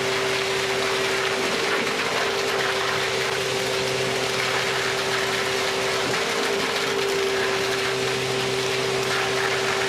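A machine running steadily, with a constant high hum over a dense mechanical rattle.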